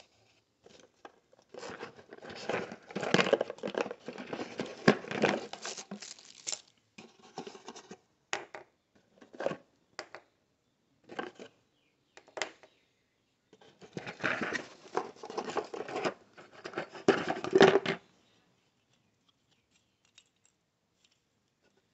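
Plastic packaging crinkling and rustling as carburetor kit parts are handled in a cardboard box, in two long bouts with a few separate short clicks and knocks between them.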